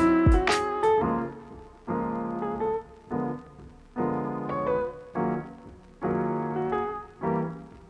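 Background piano music: a chord struck about once a second, each fading before the next.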